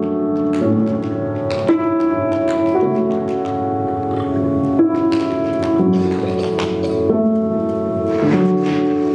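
Tap dancing: the metal taps of tap shoes strike the floor in irregular clusters over music of held chords that change about once a second.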